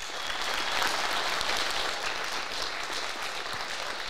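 Audience applauding, rising to its loudest about a second in and then slowly tapering.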